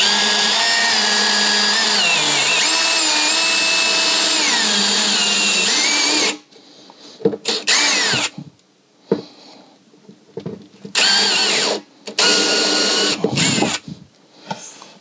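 DeWalt cordless drill with a hole saw running for about six seconds, boring into the plastic tank top, its motor whine wavering in pitch as the load changes, then stopping suddenly. Several shorter bursts and clicks follow, with another brief run of the drill a little past the middle.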